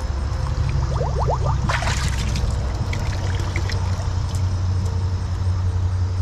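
Liquid dip poured in a thin stream from a small bottle, trickling and splashing into a galvanized metal can of sudsy water, over a steady low rumble.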